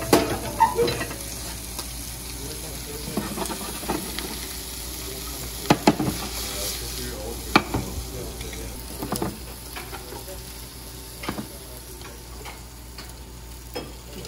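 Food sizzling steadily in frying pans on induction burners, with sharp clinks and knocks of metal cookware every second or two.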